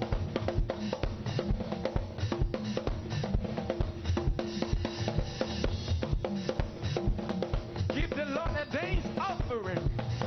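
Music driven by a drum kit playing a fast, dense beat of bass drum and snare hits over steady held notes, with notes sliding up and down in pitch near the end.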